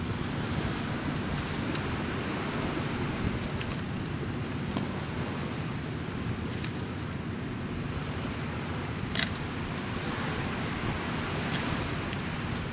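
Steady wind noise buffeting the microphone outdoors, with a few faint, short ticks scattered through it.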